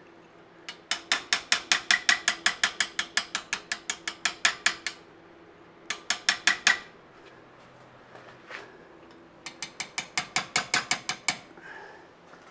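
Rapid light hammer blows, about six a second, on a small steel chisel carving a red-hot bar of hard Damascus steel held in a vise, each strike ringing. The blows come in three runs, the first about four seconds long.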